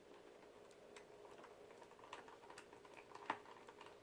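Faint, irregular small clicks and ticks of a hand screwdriver driving screws into a laptop's screen assembly, with one sharper click about three seconds in.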